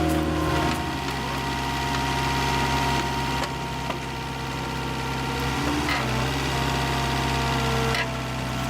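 An engine running steadily at an even speed, its hum shifting in pitch abruptly a few times.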